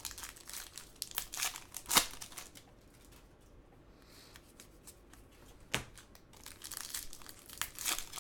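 Trading-card pack wrappers crinkling and tearing as packs are opened and cards handled, in bursts, with a sharp snap about two seconds in and a single click a little before six seconds.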